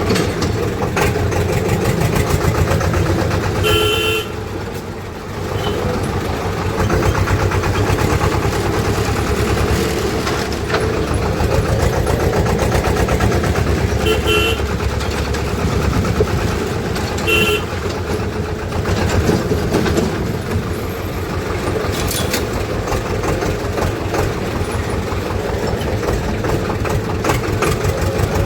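Swaraj tractor's diesel engine running steadily under the driver, with three short horn toots about 4, 14 and 17 seconds in.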